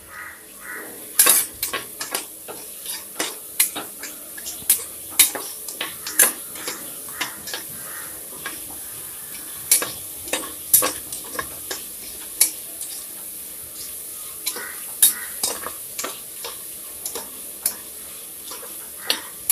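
Sliced onions sizzling in hot coconut oil in an aluminium pressure cooker while a steel spoon stirs them, scraping and clicking against the pot many times at an irregular pace over a steady frying hiss.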